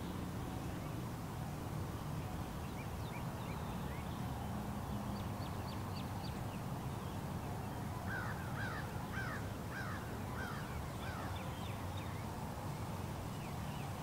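Crows cawing and smaller birds chirping in the dawn chorus, with a quick run of calls a little past the middle, over the steady rumble of distant highway traffic.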